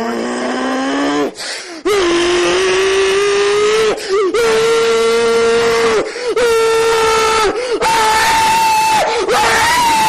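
A person's voice giving a string of long, held screaming cries, each a second or two, stepping up in pitch, with the last ones much higher.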